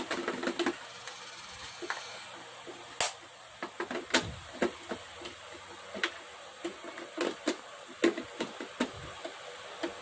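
Irregular plastic clicks and knocks from an Automat robot vacuum cleaner's plastic housing being handled, with a part on its top pressed into place. The sharpest knocks come about three, four and eight seconds in.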